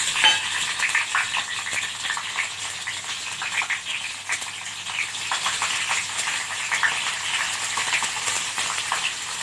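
Cut mild chillies sizzling and crackling in a couple of spoonfuls of hot mustard oil in a kadai: a steady frying hiss dotted with small pops.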